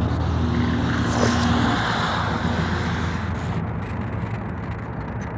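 Scania R440 truck's diesel engine running at low revs, its sound slowly fading, with a hiss about a second in.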